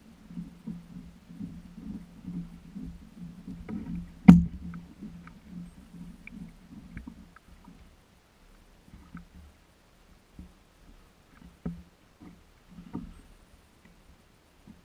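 Small waves lapping against the plastic hull of a kayak in a low, rhythmic patter, about two slaps a second, fading after the first half. A sharp knock on the hull about four seconds in, and a few lighter knocks later.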